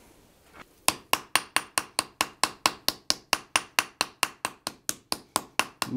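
Ball peen hammer striking red-hot sheet iron on an anvil in quick, even blows, about five a second, texturing the metal's surface. The hammering starts about a second in.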